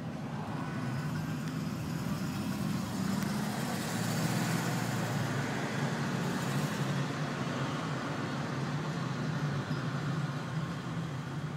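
Holden Commodore SS V8 with a Borla exhaust, droning steadily while it is driven, heard from inside the car together with tyre and wind hiss. The sound swells a little between about 3 and 7 seconds in, then settles back.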